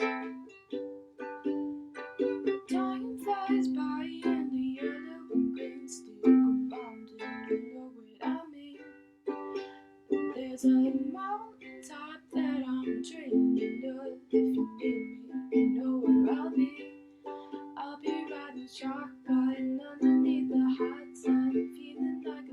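Strummed acoustic string instrument playing rhythmic chords in an instrumental passage with no singing.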